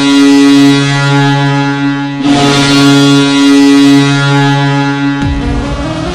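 Boston Bruins' arena goal horn blowing a steady low tone in two long blasts, the second starting a little after two seconds in. The goal song's music cuts in near the end.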